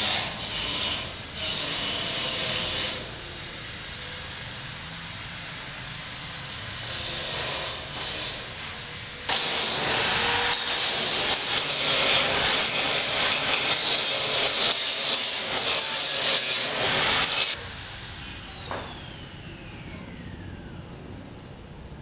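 A high-speed power cutting tool running with a high whine in two spells, the second about eight seconds long. It is then switched off, and its whine falls in pitch as it spins down.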